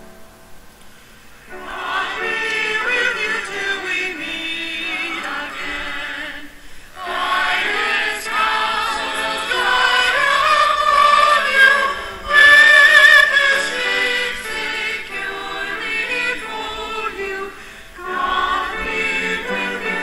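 Choir singing a hymn, coming in about a second and a half in after a soft start, in phrases with short pauses between.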